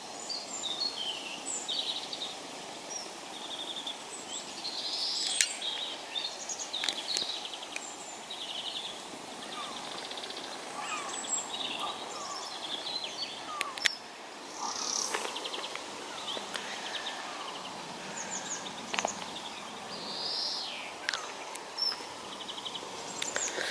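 Small birds chirping and twittering, with short calls and trills scattered throughout, over a steady wash of outdoor background noise. There are a few sharp clicks along the way.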